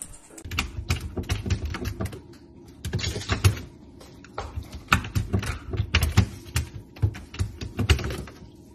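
A puppy's claws clicking and scrabbling as it paws at an open fridge's freezer drawer, an irregular run of sharp taps with soft thumps under some of them.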